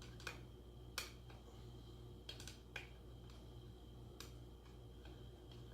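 A few light, scattered clicks and taps of small metal engine parts (rocker arm and rocker shaft) being handled, the sharpest about a second in, over a faint steady hum.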